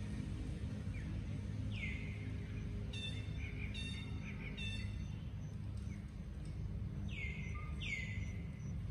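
Outdoor ambience of birds calling over a steady low background hum. There is a quick falling whistle about two seconds in and two more near the end, with three short, buzzy calls in the middle.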